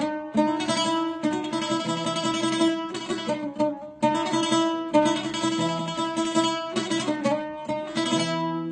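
Instrumental break in a Syrian mawaliya folk song: a plucked string instrument playing a run of quickly picked melody notes over steadily held tones, with a short pause about four seconds in.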